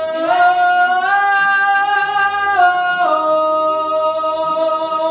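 A voice singing long, held notes without words, stepping up in pitch twice in the first second and stepping back down about two and a half and three seconds in.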